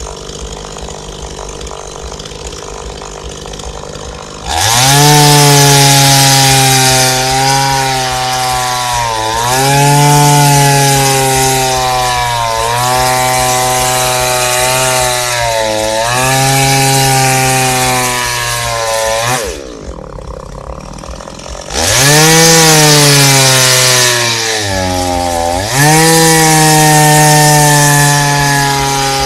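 Two-stroke chainsaw in a chainsaw mill frame, ripping a log lengthwise. It idles at first, then revs up sharply about four seconds in. Under load the engine note sags and recovers every few seconds as the bar cuts along the log. It drops back to idle briefly past the middle, then revs up again and carries on cutting.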